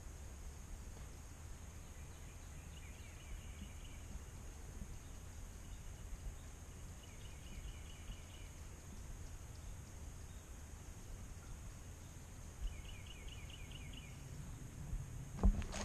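A small bird singing in three short bouts of quick repeated high notes over a steady low rumble, with a few sharp knocks near the end.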